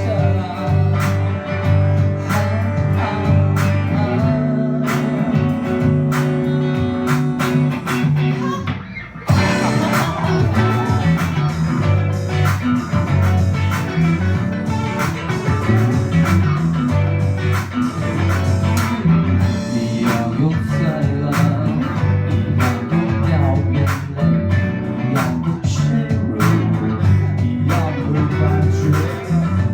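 Live rock band playing, led by guitars over bass. About nine seconds in the music drops away briefly, then the full band comes back in.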